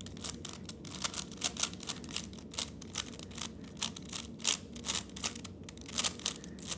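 A 3x3 Rubik's cube being turned by hand: a rapid, uneven run of sharp plastic clicks as the layers snap round, several a second.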